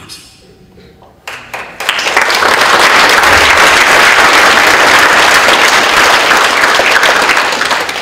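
Audience applauding in a large hall: the clapping starts about a second in, swells quickly to a loud, dense applause, and begins to fade near the end.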